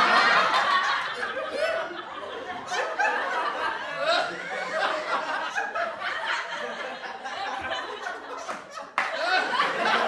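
A group of people laughing, many voices overlapping. It is loudest at first and eases about two seconds in. About nine seconds in it breaks off abruptly and swells loud again.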